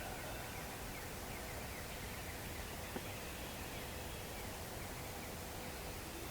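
Quiet outdoor ambience: a steady faint hiss with many short, distant bird calls repeating throughout, and a single small click about three seconds in.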